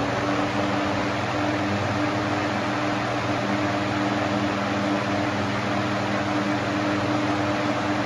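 20-inch box fan running at speed: a steady rush of air from the spinning blades, with a steady motor hum beneath it.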